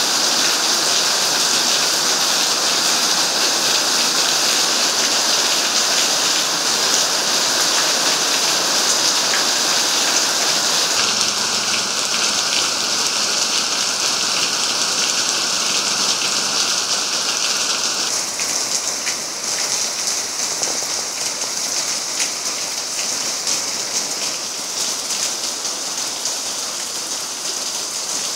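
Heavy rain falling steadily on paving and foliage, a dense even hiss of drops; it becomes a little quieter about eighteen seconds in.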